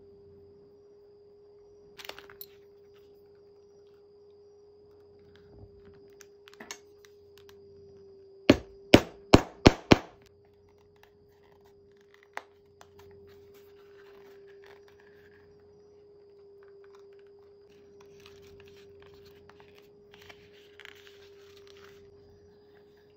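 Five sharp blows of a hammer on a metal leathercraft tool, in quick succession at about three a second, roughly halfway through. Around them are light clicks from handling the leather and small metal fittings, over a steady low hum.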